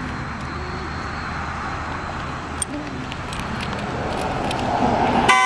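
Steady road-traffic noise that swells a little toward the end. Then, just before the end, a car horn sounds its first blast, the start of a run of regular honks about two a second set off from the remote key.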